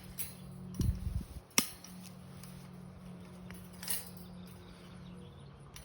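Galvanized wire fencing being handled: a few sharp metallic clinks, the clearest about a second and a half in and near four seconds, with a brief low thump early on, over a faint steady low hum.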